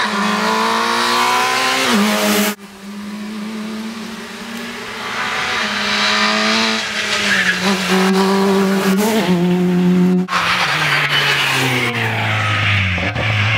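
Škoda Fabia rally car's four-cylinder engine running hard at high revs as the car drives past, its pitch stepping up and down with gear changes. The sound breaks off abruptly twice where separate passes are cut together.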